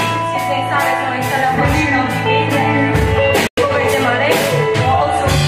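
Live worship band playing a song, with guitars, keyboard and a steady drum beat under sung vocals. The sound cuts out for an instant about halfway through, then the music carries on.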